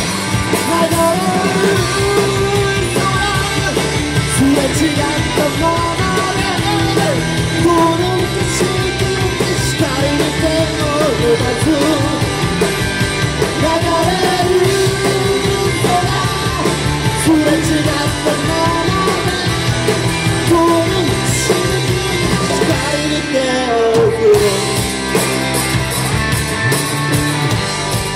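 Live rock band playing: electric guitars, bass guitar and drum kit, with a male lead vocalist singing. The bass and drums drop out briefly near the end.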